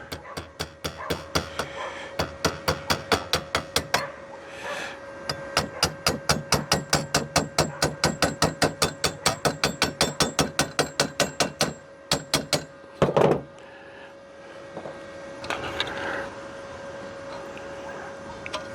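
Hammer tapping a sheet-steel patch piece to round off its bend, in rapid even strikes about four a second. There are two long runs of strikes with a short pause between them, ending in one heavier knock.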